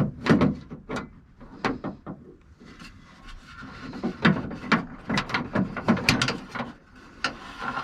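A 1989 Subaru Brumby's broken outer door handle being wiggled and worked out of the door: a run of irregular clicks, knocks and rattles, coming thicker about halfway through.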